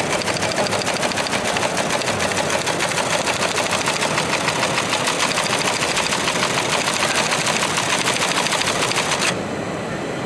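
A small machine clattering rapidly and evenly, then cutting off suddenly about nine seconds in.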